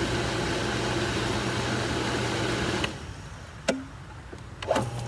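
Pool filter pump running on high speed with a steady rushing whoosh and low hum. About three seconds in it drops to low speed and runs much quieter. A couple of short clicks follow.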